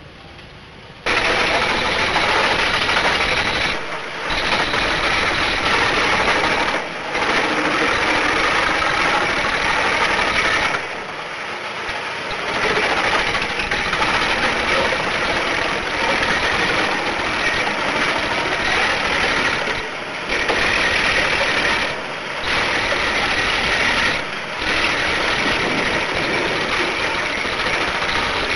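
Starchl MK 86 drum wood chipper running and chipping wood: a loud, dense grinding-and-engine noise that starts about a second in and briefly eases off several times.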